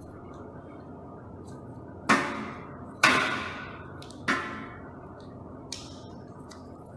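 Masking tape ripped off its roll in three short pulls, about two, three and four seconds in, as it is wound round a thermometer to seal it, with a faint click near the end.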